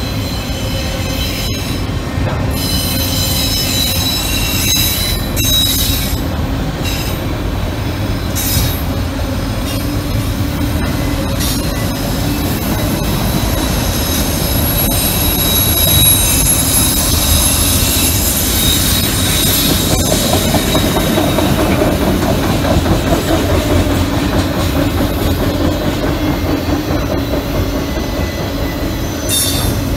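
Freight train of autorack cars rolling steadily past, a continuous rumble with occasional wheel clicks, overlaid by a high squealing from the autoracks that comes and goes.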